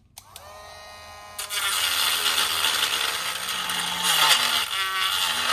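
Dremel rotary tool with a grinding stone switching on with a click and spinning up to a high whine, then grinding against the locomotive's old smokestack from about a second and a half in, a loud, steady, harsh grinding noise.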